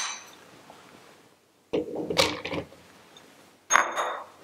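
Banana slices tipped from a bowl into a plastic Blendtec Twister blender jar, landing on the peanuts with soft thuds over about a second. Near the end a dish is set down on the counter with a short clink.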